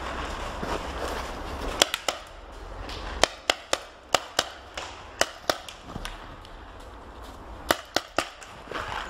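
Paintball markers firing: about a dozen sharp pops in quick runs of two or three, starting about two seconds in.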